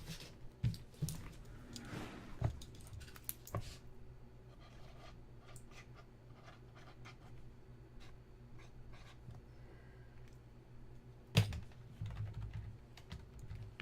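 Computer keyboard being typed on in scattered bursts of clicks, with a sharper click about eleven seconds in.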